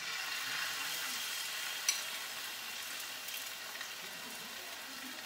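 Chicken breasts sizzling in hot oil in a frying pan. The sizzle starts suddenly as the meat goes into the pan and stays steady, with a short click about two seconds in.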